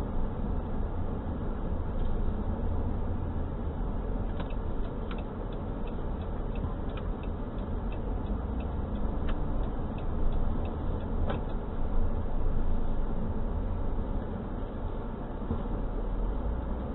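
A car driving slowly, a steady low rumble of engine and tyres heard from inside the cabin. From about four seconds in to about eleven seconds, a run of light ticks sits on top of it.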